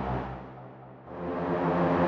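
AIR Vacuum Pro virtual analog synthesizer playing sustained chords: one fades away over the first second, then the next swells in about a second in, growing brighter as it rises.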